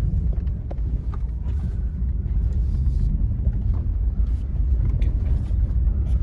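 Vehicle driving over a rough, rutted dirt road: a steady low rumble with scattered knocks and rattles.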